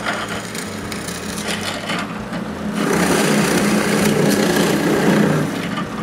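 Drill press running with its bit boring into a thick laminated plywood block, over a steady motor hum. The cutting gets louder about three seconds in and eases off shortly before the end.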